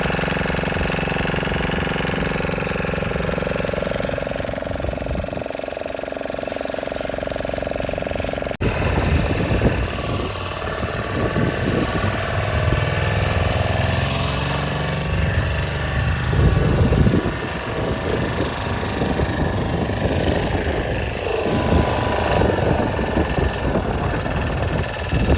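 An engine running steadily. About eight and a half seconds in the sound changes abruptly, and from then on the engine runs rougher and more uneven.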